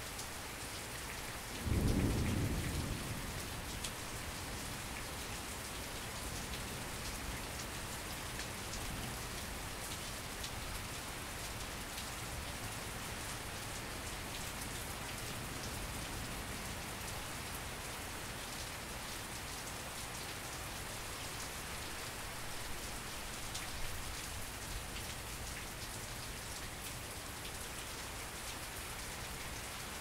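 Steady rain falling, with a sudden loud clap of thunder about two seconds in that rumbles away over the next second or two.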